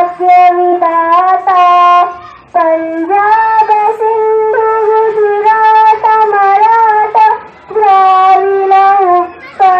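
A wind instrument playing a slow melody in long held notes, each a second or two, with short breaks between phrases.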